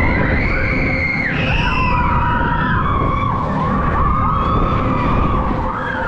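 Several riders screaming over and over, long held cries that overlap and rise and fall, over the steady rumble of a spinning Eli Bridge Scrambler ride.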